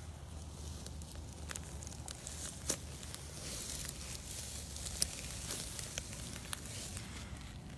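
Dry hay crackling and rustling close to the microphone, with scattered sharp clicks, the loudest one about five seconds in.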